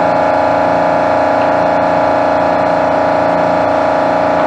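Powder-coating shop equipment running: a steady mechanical drone with a strong hum that does not change.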